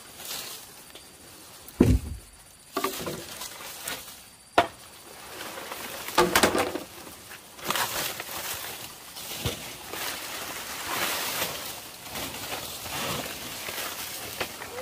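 Several separate knocks and thumps, the loudest a heavy thump about two seconds in, then a longer stretch of rustling and scraping.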